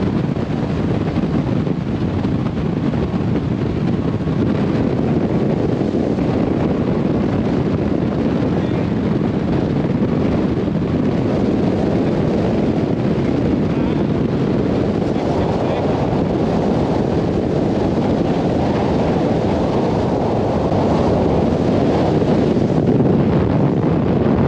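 Heavy wind noise on the microphone from a bass boat running flat out at about 65 mph, over the steady sound of its Mercury 200 HP Pro XS four-stroke outboard running near wide-open throttle at around 5,800 rpm.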